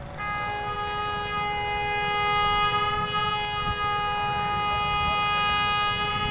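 A Pakistan Railways diesel locomotive's horn sounding one long, steady blast of several notes together. It starts just after the beginning, and a lower note joins a moment later.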